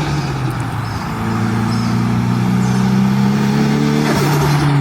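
Nissan Silvia S15's turbocharged engine running and rising slightly in pitch, with turbo flutter and a high whistle near the end.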